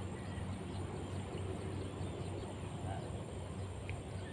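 Steady outdoor background noise with a low hum underneath and no distinct event.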